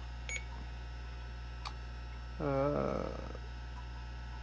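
IBM AT computer running with a steady low hum from its fan and spinning hard drive. Two keyboard clicks come in the first two seconds. About halfway through there is a short wavering voiced sound, like a brief hummed 'hmm'.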